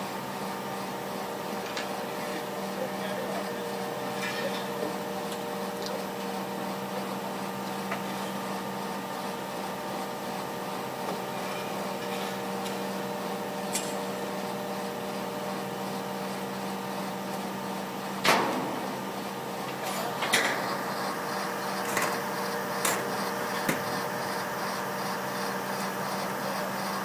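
Mobile crane's engine running with a steady hum while it holds a boat in slings. Sharp knocks come in the last third, the loudest about two-thirds of the way through, as the hull is set down on stands.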